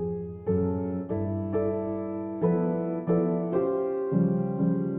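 Background piano music: calm notes or chords struck about once or twice a second, each fading away.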